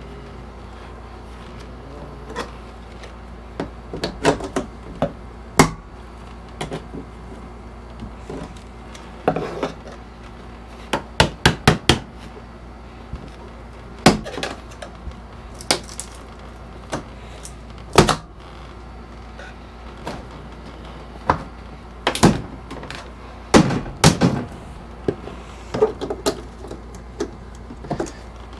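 Wooden shipping crate being taken apart: irregular knocks and bangs of boards and tools on wood. They include a quick run of four knocks about eleven seconds in and single loud knocks about eighteen, twenty-two and twenty-four seconds in.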